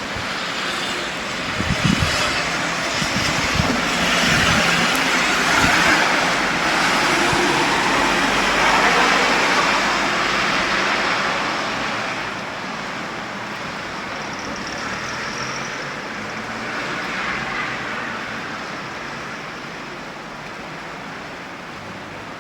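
Rain falling steadily while a vehicle passes on the wet street, its tyres hissing louder over the first several seconds and fading away after about twelve seconds, leaving the steady patter of rain.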